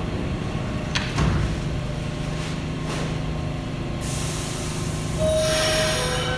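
R160 subway car's doors sliding shut with a thump about a second in, then a steady low hum from the train. From about four seconds in comes a loud air hiss, typical of the brakes releasing. Near the end short stepped tones from the propulsion sound as the train begins to pull away.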